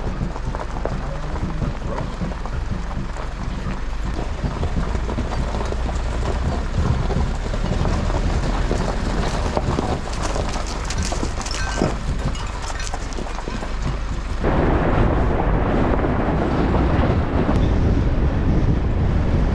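Wind buffeting the microphone over a steady low rumble of rushing noise. It becomes abruptly louder and fuller about fourteen seconds in.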